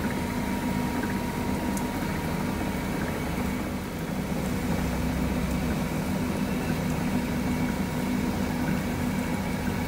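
Noodle-making machinery running steadily: a constant low motor hum with a faint steady whine above it.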